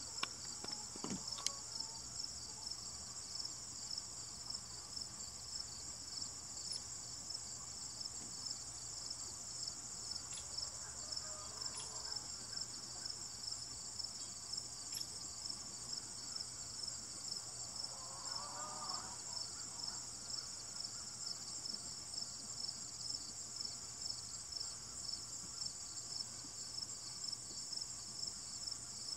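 Steady, high-pitched chirping of insects in a continuous, finely pulsing chorus.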